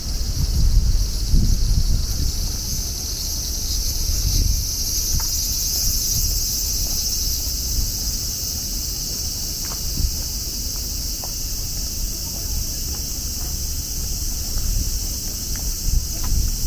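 Strong wind buffeting the microphone in gusts, over a chorus of cicadas buzzing as a steady high drone that swells a few seconds in.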